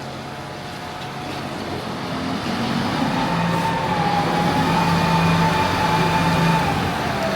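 A motor vehicle's engine running, growing louder over the first few seconds, with a steady whine that dips in pitch near the end.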